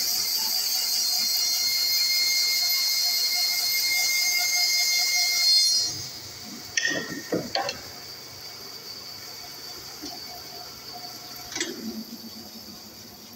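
Bandsaw cutting a wooden board: a steady high whine with hiss. About six seconds in it drops away suddenly, leaving the saw's quieter running hum with a few short knocks and scrapes of the board.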